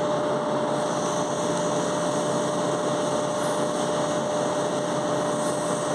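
Steady whir of a running machine with a constant mid-pitched hum, even and unchanging throughout.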